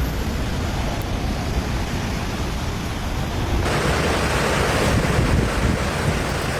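Storm wind buffeting the microphone over a steady rushing noise. A little over halfway through, the sound switches abruptly to a louder, brighter hiss.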